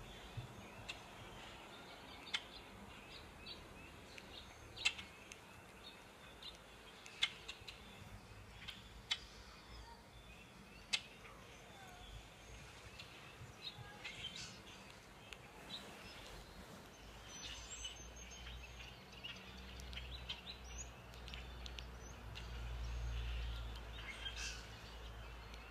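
Small birds chirping, played faintly through a tablet's speaker: short sharp chirps scattered every second or so.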